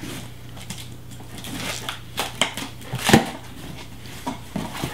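A cardboard shipping box being opened and unpacked by hand: irregular rustling and crinkling of cardboard and packing material, with a louder knock about three seconds in.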